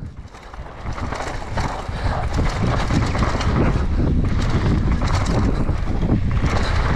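Mountain bike running down a rough dirt trail, heard from an on-bike or helmet action camera: wind on the microphone mixed with the clatter of tyres and bike over the ground. It is quieter for the first second, then grows louder as speed builds.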